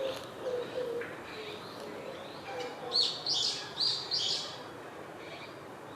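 Male Japanese sparrowhawk calling a quick run of four high, sharp notes about three seconds in, calling for the female to come for the prey he has caught.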